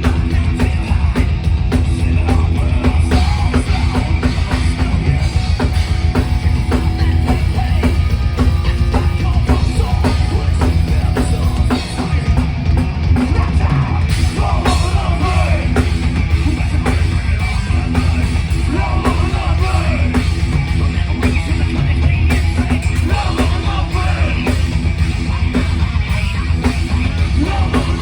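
A thrash metal band playing live, with drum kit and electric guitar, loud and continuous.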